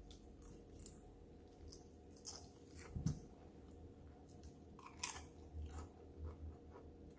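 A person biting and chewing crunchy food, a BLT sandwich and chips, with irregular crisp crunches, the loudest about five seconds in.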